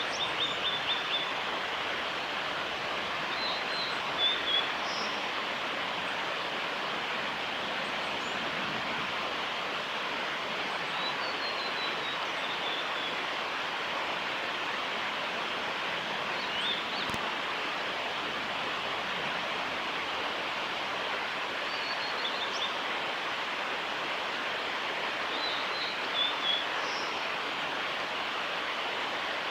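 Male blue-and-white flycatcher singing short, high phrases, one every four to six seconds, over a steady rushing background noise.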